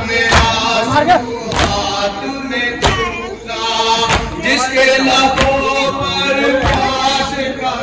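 A crowd of men chanting a noha (Muharram lament) in unison, with sharp slaps of hand matam, chest-beating in unison, about every second or so.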